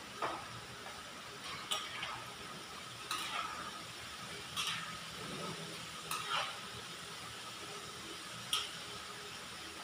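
Chicken pieces frying in oil in a wide metal pan with a steady sizzle, while a metal utensil stirring them scrapes and clinks against the pan several times at irregular moments.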